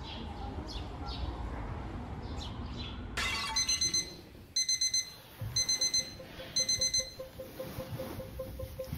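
Birds chirping. About three seconds in, an electronic alarm clock starts beeping in quick clusters of four high beeps, roughly one cluster a second.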